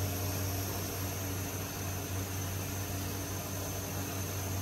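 Steady low hum with an even hiss of room noise; no distinct event.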